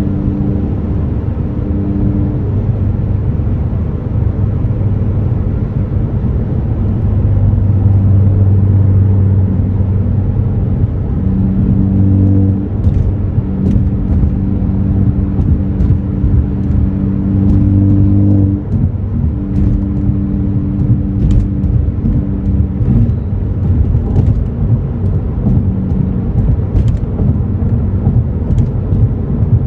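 Ford Focus ST's turbocharged 2.0-litre four-cylinder with an AWE axle-back exhaust, running at steady cruising revs with a constant low drone over road noise. The drone briefly drops away twice, about twelve and nineteen seconds in.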